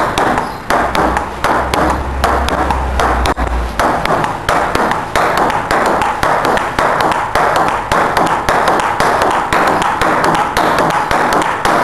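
Table tennis ball in a fast rally: a steady stream of sharp taps from paddle and ball hits, about three or four a second, over steady background noise. A low hum runs through the first few seconds.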